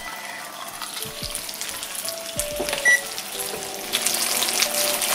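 Wagyu sirloin steak sizzling in oil in a hand-forged Turk iron frying pan. The frying gets louder about 4 s in as the lid comes off, and there is a single light metallic clink a little before that. Background music plays throughout.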